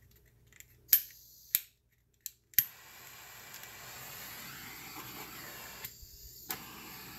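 Handheld Bernzomatic gas torch: a few sharp clicks as it is lit, then the flame hisses steadily. It cuts out briefly about six seconds in and relights with a click.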